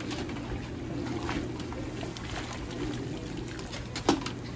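Broth sloshing and pouring as a wire strainer ladle is dipped into a pot of boiling noodle broth and lifted out draining, with small metal clinks and one sharp metal clank about four seconds in.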